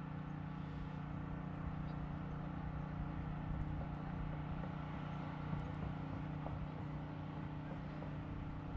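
Boat motor running steadily, a constant low hum.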